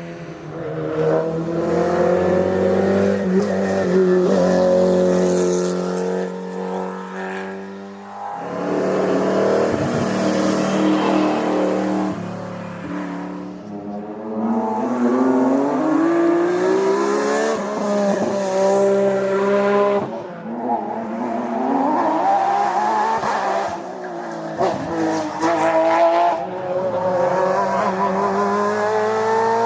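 Historic racing cars' engines at full throttle on a hillclimb, revving up and dropping back through gear changes. Several cars are heard in turn, with sudden changes where one car gives way to the next.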